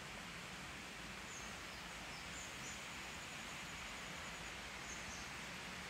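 Faint outdoor forest ambience: a steady soft hiss with a handful of short, high bird chirps scattered through it.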